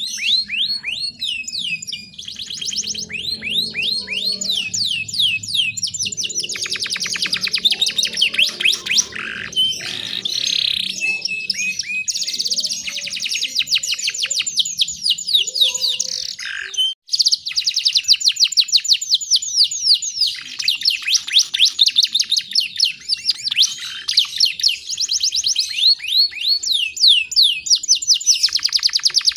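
Small songbird singing loud, fast trills: long runs of rapid, repeated sweeping notes in phrases, with a brief break about 17 seconds in.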